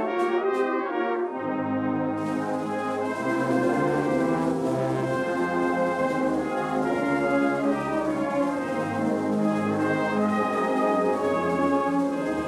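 Brass band playing a slow hymn arrangement in sustained chords that shift every second or so, the bass notes coming in about a second in.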